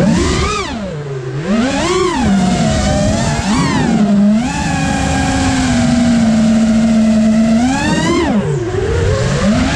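Brushless motors of a 5-inch FPV freestyle quad (Flywoo 2306 2450 kV on 5S, spinning Gemfan Hurricane 5.1-inch props) whining as the throttle is punched and cut. The pitch rises and falls three times, holds steady for about three seconds, then surges and dips again near the end, as picked up by the GoPro riding on the quad.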